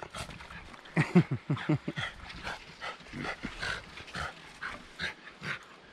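A dog, just out of the cold river, gives a quick run of short falling whines about a second in, then pants steadily, about two or three breaths a second.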